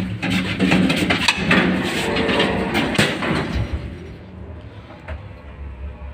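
Old MLZ passenger elevator, built around 1991: its mechanism clatters and knocks for about three and a half seconds, then settles into a quieter low steady hum with a few single clicks.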